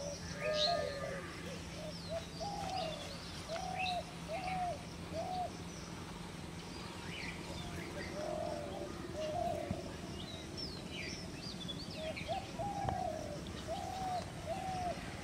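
Birds calling: one bird repeats short, low notes that each rise and fall, in runs of three or four, while smaller birds chirp at a higher pitch.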